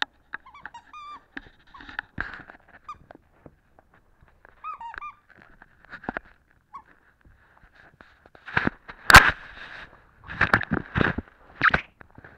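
An animal's squeaks and cries: short rising and falling chirps in the first half, then a run of louder, harsher calls from about two thirds of the way in.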